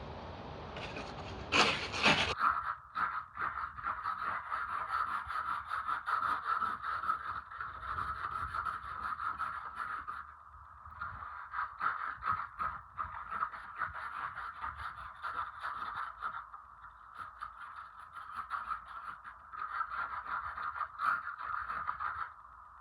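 Ice and crusted snow being scraped off a vehicle in rapid, repeated strokes. It starts with a loud burst about two seconds in and pauses briefly twice.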